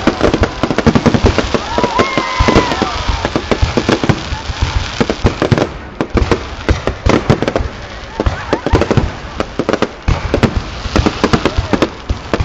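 A fireworks display going off in quick succession: a dense stream of sharp bangs and crackles, with voices of onlookers underneath.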